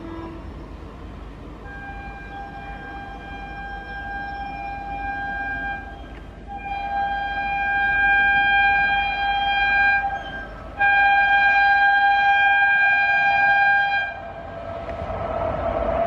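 Indian Railways train horn sounding three long steady blasts in a row, the last one the loudest. Near the end a rising rumble of an approaching train takes over.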